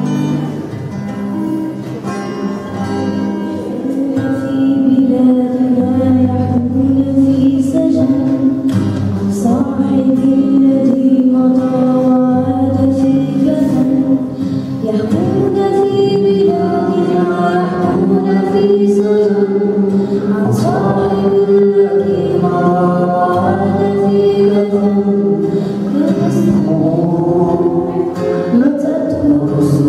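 A girl singing a melody with held, gliding notes, accompanied by an acoustic guitar. The guitar is heard alone at first, and the voice grows louder about four seconds in.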